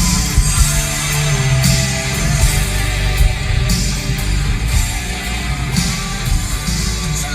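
Loud music with guitar and heavy bass played through the repaired Alpine Type X subwoofer as a playback test; the bass comes through cleanly, a sign the subwoofer is working again.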